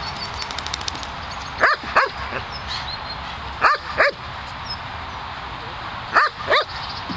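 Small terrier barking in three quick double barks, about two seconds apart, with its head raised toward something above it.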